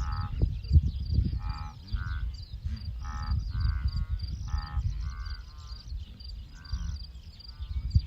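Repeated short animal calls, each a fraction of a second long, about one a second, over a low rumble.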